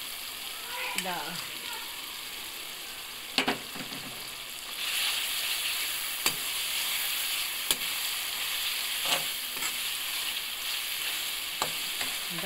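Bitter gourd, onion and tomato sizzling in hot oil in a steel wok, stirred with a perforated metal spatula that clinks against the pan now and then. The sizzle grows louder about five seconds in.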